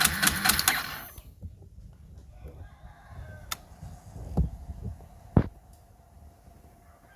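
Motorcycle fuel injector being pulse-tested on the bench: rapid clicking, about ten a second, with the hiss of fuel spraying, stopping about a second in. This is the freshly cleaned injector spraying strongly. Later come two sharp knocks, and a rooster crows faintly in the background.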